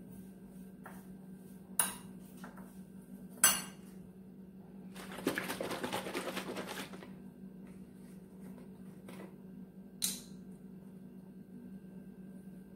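A few sharp clinks and knocks of a glass bowl and utensils on a kitchen counter, the loudest about three and a half seconds in. From about five to seven seconds comes a rattling, sloshing stretch as a carton of almond milk is shaken. A steady low hum runs underneath.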